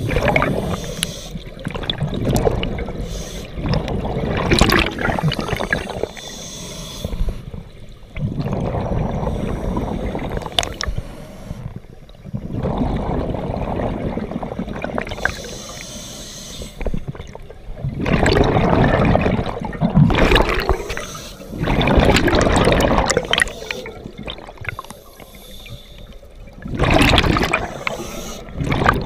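Scuba divers breathing through regulators underwater: exhaled bubbles gurgling out in bursts of a couple of seconds, alternating with quieter inhalations, in slow repeating breaths.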